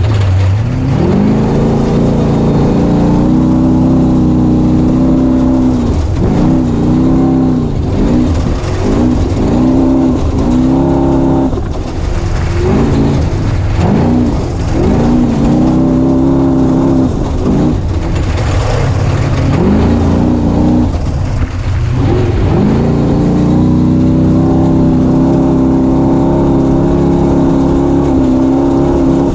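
Off-road race vehicle's engine at racing speed, heard on board. It climbs and holds high revs, then rises and falls over and over for about fifteen seconds as the throttle goes on and off, then climbs and holds steady again.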